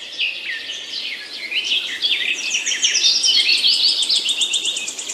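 Several small songbirds chirping and singing at once, with short down-slurred notes and fast high trills that grow denser toward the end.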